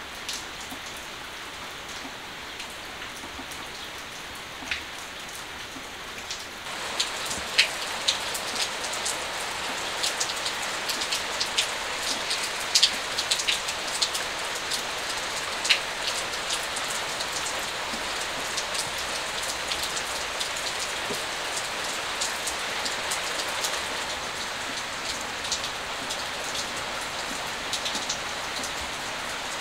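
Steady rain falling, with many single drops striking sharply. It grows louder and denser about seven seconds in.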